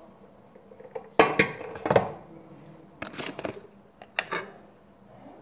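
Kitchenware handled on a countertop: a sharp knock about a second in followed by a short clatter, another few clinks about three seconds in, and a single click just after four seconds.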